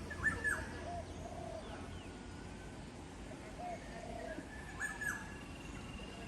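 Birds calling: a low cooing note repeated in pairs, and twice a louder, sharper call, once just after the start and once near five seconds.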